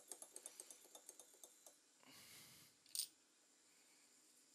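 Faint small clicks at a repair bench: a quick, even run of light ticks, about seven a second, dying away under two seconds in, then a short soft rustle and one sharper click about three seconds in.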